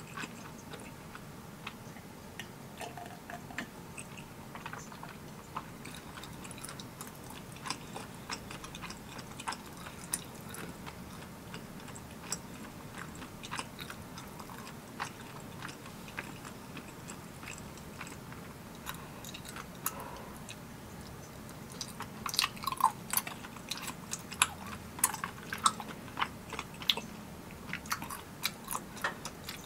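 Close-miked chewing of spicy tteokbokki rice cakes: wet, sticky mouth clicks and smacks, growing denser and louder about two-thirds of the way through.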